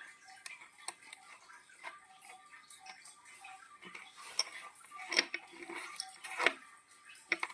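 Scattered light metallic clicks and clinks, a few louder ones in the second half, from the metal collars of a gas-cylinder removal tool being handled and fitted on an office chair's chrome gas cylinder.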